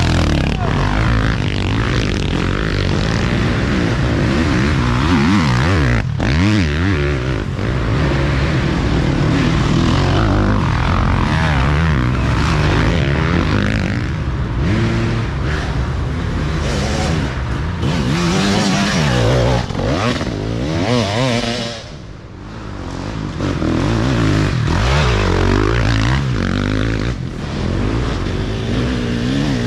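Off-road dirt bike engines revving and passing one after another, the pitch rising and falling as riders work the throttle, with a short lull about two-thirds of the way through.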